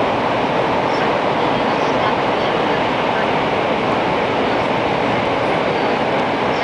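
Steady running noise heard inside the passenger cabin of a JR West N700 series 8000 Shinkansen: an even rushing hum that holds at one level throughout.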